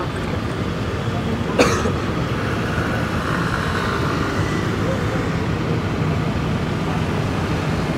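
Street traffic: a steady low rumble of passing vehicles' engines and tyres. A single sharp click about a second and a half in.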